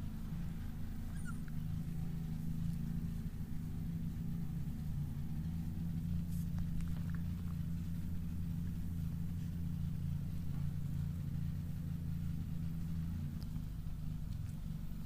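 A steady low hum runs throughout, with a few faint, short high squeaks and clicks above it.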